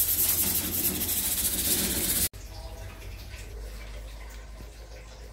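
Sandpaper rubbing on a steel gate sheet to take off spots of rust, a loud steady rasping that cuts off abruptly a little over two seconds in. After it, a much quieter faint noise.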